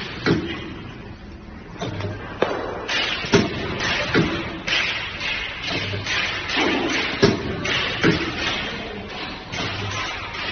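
PE bag sealing and cutting machine running roll to sheet, its cutter knocking with sharp thumps every second or two, with bursts of hiss between the strokes.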